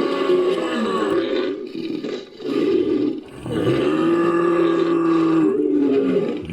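Creature roars and grunts for a giant ape-like caveman, made from a human voice layered with film ape and beast calls. There is a long call, a brief dip, a short call, then another long call that drops in pitch at its end.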